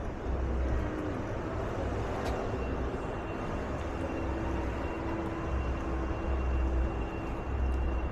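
City street ambience with vehicle traffic: a steady noisy hum, low rumbles that come and go, and a faint steady high tone from about two seconds in.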